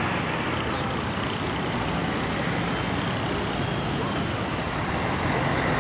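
Steady road traffic on a busy multi-lane avenue: cars, pickups and vans driving past close by.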